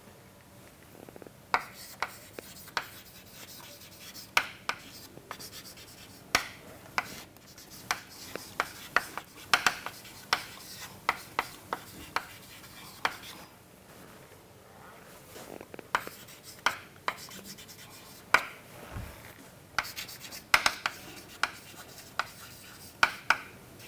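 Chalk writing on a chalkboard: a quick run of short taps and scratches as letters are written, broken by a few short pauses.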